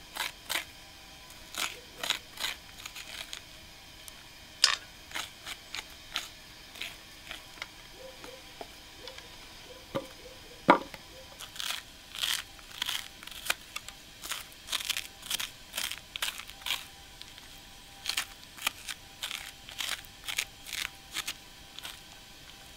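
Metal spoon scraping seeds and stringy pulp out of a halved pumpkin, in short irregular scrapes, one or two a second, with one louder knock about eleven seconds in.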